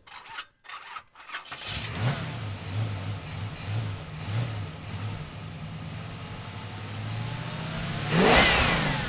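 A car engine starts about a second and a half in, revs in several short swells and settles to a steady run. About eight seconds in a loud rushing sweep rises and falls, with a dropping pitch like a vehicle passing close.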